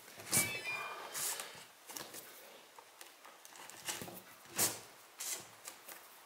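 Hand-stitching leather onto a woven rush basket: a few separate scratchy pulls of cord drawn through the leather, the first with a short high squeak, amid light rustling of the rush weave.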